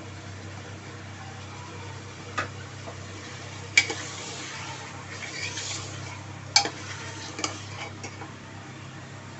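A metal ladle stirs sliced onions into mutton frying in oil in an aluminium pressure cooker, clinking sharply against the pot several times over a soft sizzle.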